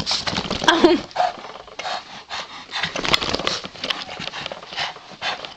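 Boston terrier's play noises and breath sounds in short, irregular bursts while tugging at a toy held in a hand.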